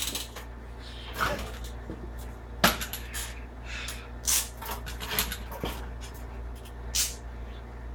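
Scattered clicks, knocks and rustles of hand tools and parts being handled, with a few sharper taps and no drill running.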